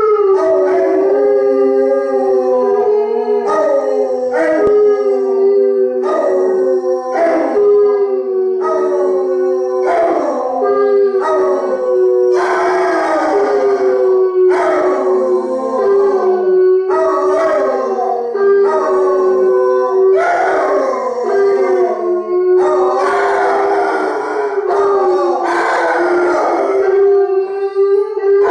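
Basset hounds howling together: long, overlapping howls that slide down in pitch, over one steady note held almost throughout.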